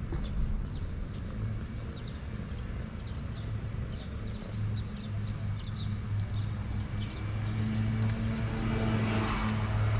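Tabby-and-white cat purring with a steady, fine pulsing close to the microphone as its head is stroked, with small birds chirping in the background.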